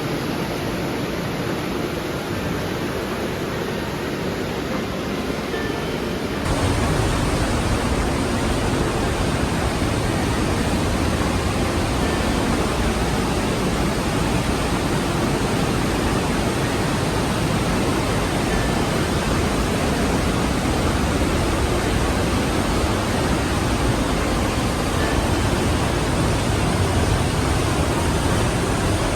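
Steady rush of the Aare river's water through a narrow rock gorge. About six seconds in it jumps louder, with more low rumble, and stays that way.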